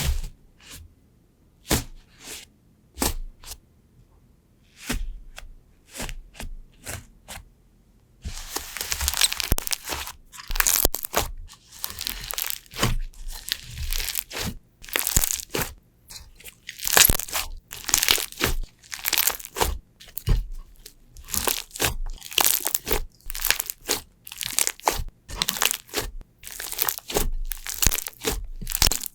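Slime being pressed and squeezed. For the first several seconds there are scattered sharp clicks and pops. From about eight seconds in come rapid bursts of crunching and crackling, roughly one a second.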